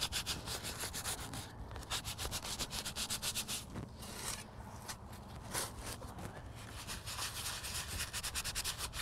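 Quick, repeated rubbing strokes as oily sand is wiped up over the upper part of a shovel blade, coating the metal with a film of oil against rust.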